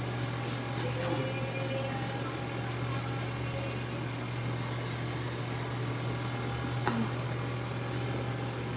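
A steady low electrical hum from a running appliance motor, with a few faint handling sounds and a sharp click about seven seconds in.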